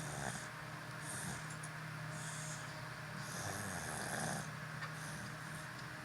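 Snoring: slow, even breaths with a hissing rasp, about one every second and a bit, over a steady low hum.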